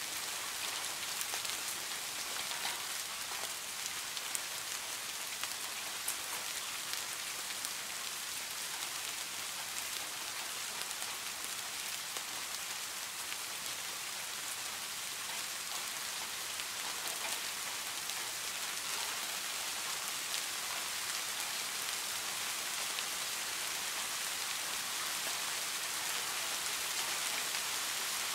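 Steady rain falling on a small garden pond, countless drops hitting the water surface in an even, unbroken wash of fine ticks.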